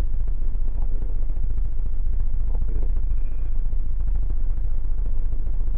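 Steady low hum, even in level throughout, with nothing else clearly heard.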